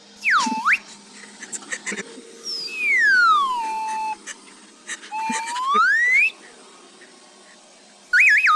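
Slide-whistle sound effects: a quick downward-and-up swoop near the start, then a long falling glide and, a couple of seconds later, a long rising glide, over a faint steady hum. A loud warbling tone comes in near the end.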